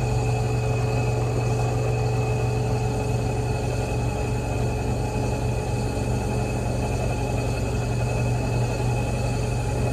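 Bench drill press motor running steadily with a fine-wire carding wheel spinning in its chuck, while a steel rifle barrel band is held against the wheel to scrub off rust loosened by boiling.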